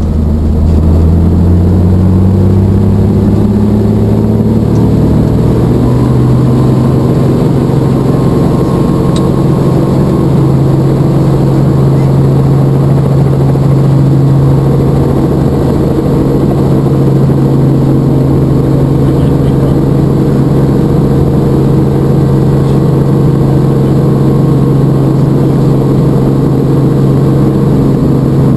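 Helicopter engine and rotor heard from inside the cabin, winding up: a pitched hum rises over the first five or six seconds as the rotor comes up to flight speed, then holds steady and loud.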